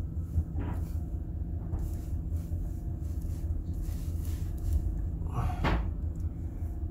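GMC Savana cargo van's engine idling, heard from inside the cab as a steady low rumble, with two brief knocks, one about half a second in and one about five and a half seconds in.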